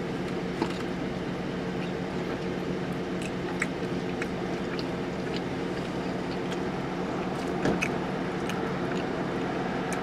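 Car engine idling with a steady hum, under faint scattered clicks and smacks of chewing.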